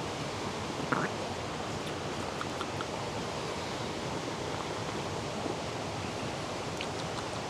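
Steady rushing of a mountain creek.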